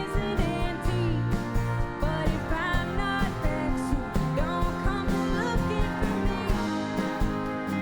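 A live band playing a country-rock song, with guitars and a steady drum beat.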